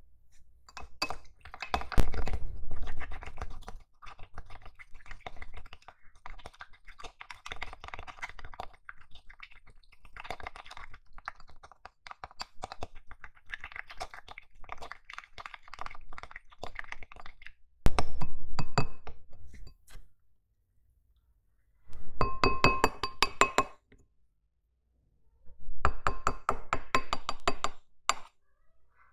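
Plastic spoon stirring a runny slime mixture in a small glass bowl: rapid clicks, taps and scrapes against the glass, with two short spells of ringing clinks near the end between brief pauses.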